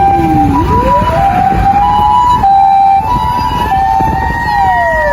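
A Japanese ambulance-style two-tone electronic siren alternating high and low, together with a mechanical motor siren that winds up over the first two seconds, holds, and starts winding down again near the end.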